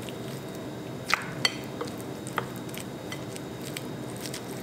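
Wooden spoon stirring and lightly mashing chunks of boiled potato and egg in a glass mixing bowl, knocking against the glass: a few scattered clinks, the sharpest a little over a second in.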